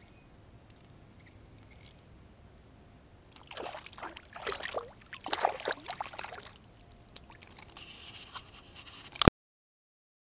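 Water splashing and sloshing beside a kayak in several irregular surges for about three seconds, then quieter rustling. A sharp click comes about nine seconds in, and the sound then cuts out.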